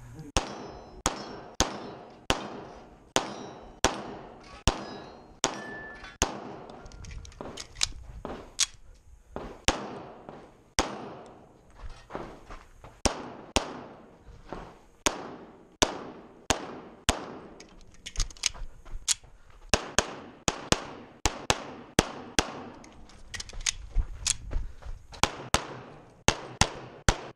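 STI Trojan single-stack pistol in .40 S&W, loaded to major power factor, firing a long string of shots during a timed stage run, many in quick pairs, with short breaks between strings. Each shot is a sharp crack followed by a brief ringing echo.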